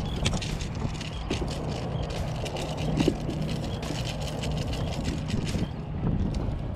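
Wind buffeting the microphone in a low steady rumble, with irregular light splashing and ticking from water and handling around the kayak, and a brief thump about three seconds in.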